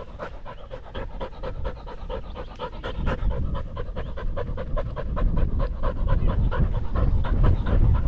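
Dog panting rapidly and close up, at about five breaths a second.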